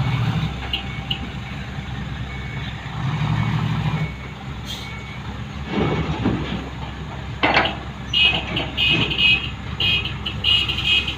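Dump truck engines running, with a reversing beeper starting about eight seconds in and sounding in quick repeated high beeps. A couple of short louder noises come around six and seven and a half seconds in.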